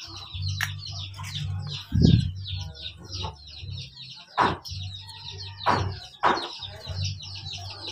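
Birds chirping rapidly and without a break, over a low hum. A few sharp plastic knocks come through as an LED headlight bulb is pushed against the headlight socket it will not go into.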